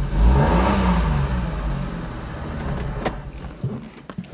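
Car engine revving, rising and falling in pitch twice and then fading away, with a sharp click about three seconds in.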